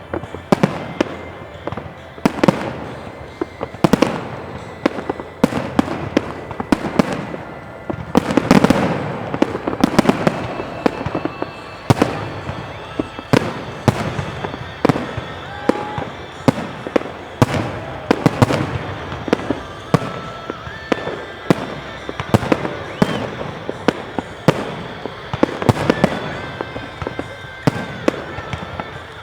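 New Year fireworks display: shells bursting in a dense, continuous barrage, several sharp bangs a second with rumbling echoes between them.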